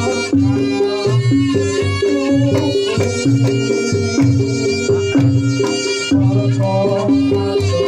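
Reog Ponorogo gamelan music played loud: kendang drums beat a steady, driving rhythm under a bending melody line, over repeating low bass notes.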